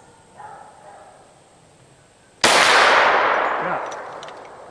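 One shot from a Glock 20 10mm Auto pistol firing a 155-grain handload. The sharp report comes about halfway through and rings out, fading over about two seconds.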